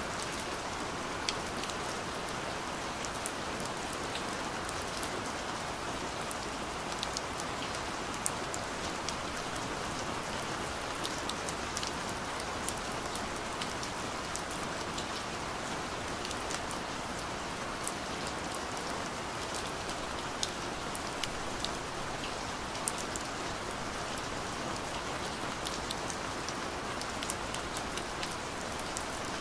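Steady rain falling on wet ground, an even hiss, with scattered sharper ticks of single drops landing close by.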